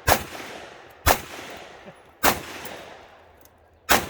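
Four shots from a single-action revolver, fired about a second apart at an uneven pace, each one followed by a decaying echo.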